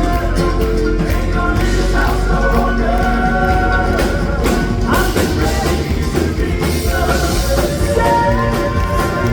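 Southern gospel quartets singing with a live band: voices holding long notes over drums and bass, with a long high note starting near the end.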